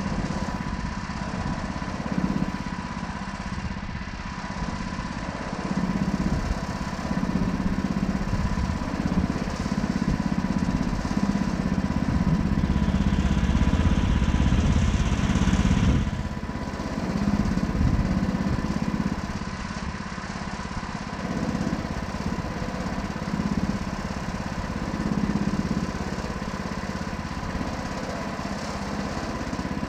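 Gasoline engine of a Woodland Mills HM126 portable bandsaw mill running steadily. A louder hiss builds about twelve seconds in and cuts off abruptly about four seconds later.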